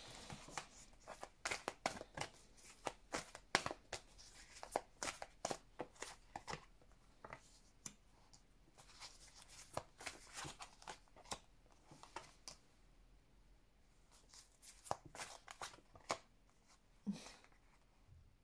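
A deck of tarot cards being shuffled by hand: quick runs of soft card snaps and slides, dense at first and then in shorter bursts with pauses. Cards are laid down on the table, with a dull thump near the end.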